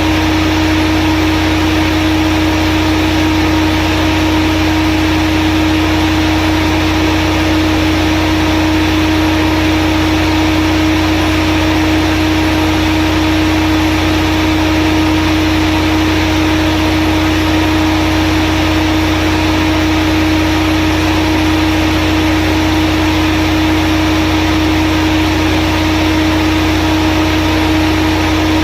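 Volvo-engined 150 kVA diesel generator running at a steady speed: a constant drone with a steady low hum and a clear steady tone above it.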